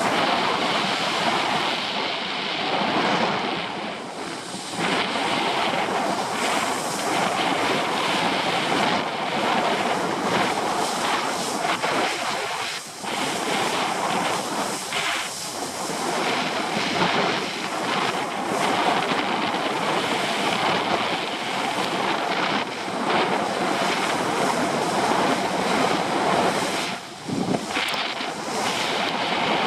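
Steady rush of wind on the microphone, mixed with water hissing and spraying under a wakeboard towed at speed, dipping briefly twice.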